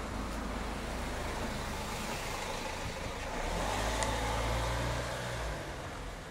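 Motor vehicle on the street: a low engine rumble swells from about halfway through and eases near the end, over steady traffic noise.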